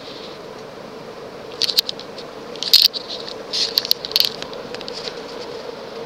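Kenroy 36-inch spinner ceiling fan (model 1036) running on high speed with a steady hum. From about one and a half to four and a half seconds in, an irregular cluster of sharp clicks and rattles comes in, louder than the fan.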